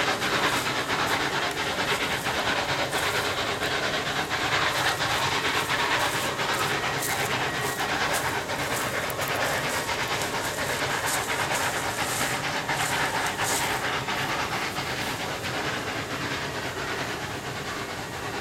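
Shay geared steam locomotive No. 5 working upgrade: a rapid, steady beat of exhaust chuffs over a hiss of steam, easing off over the last few seconds as it moves away.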